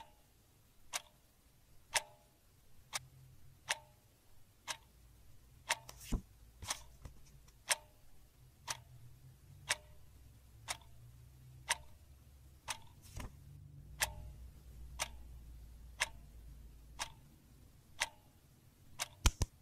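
Clock ticking steadily, about once a second, with two duller knocks about six and thirteen seconds in.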